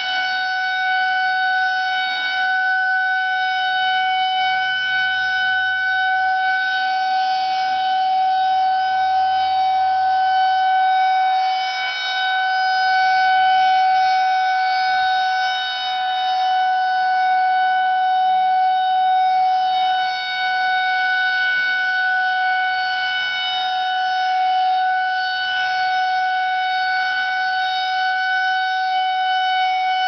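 Federal Signal 2001-130 rotating electromechanical outdoor warning siren sounding a steady tone that holds one pitch, its loudness swelling and dipping every few seconds as the horn turns.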